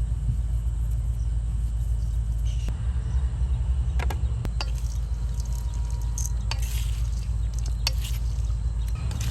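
Outdoor cooking sounds: a steady low rumble with a scattering of short, light clicks and clinks.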